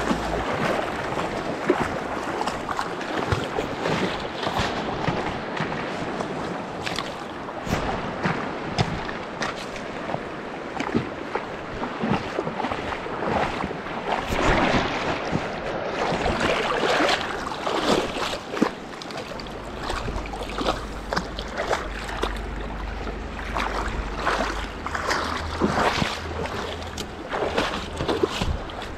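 Fast river water rushing over rocks, heard close and loud, with frequent rustles and knocks of clothing and gear rubbing near the microphone. A steady low rumble joins about two-thirds of the way through.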